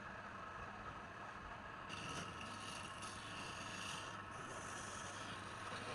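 A wood lathe running with a steady hum. About two seconds in, a hissing scrape starts against the spinning wood and goes on in several passes with short breaks.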